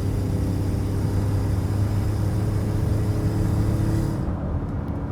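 2018 Ford F-150's 3.5 EcoBoost twin-turbo V6 running steadily with a low hum, a high hiss over it that stops about four seconds in. The owner suspects an exhaust leak.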